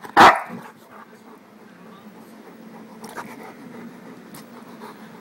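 A large dog barks once, loud and short, about a quarter of a second in, then makes quieter low sounds close to the microphone.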